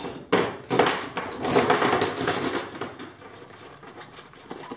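Cloth tool roll being handled and unrolled, with the fabric rustling and the steel wrenches inside clinking against each other. The handling is busiest in the first three seconds and quieter after.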